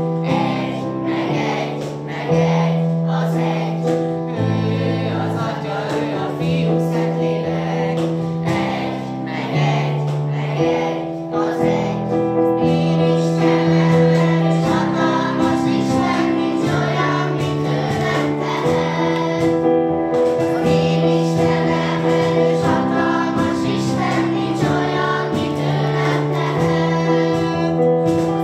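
A group of children singing a Christian camp song together, over a steady accompaniment of sustained chords.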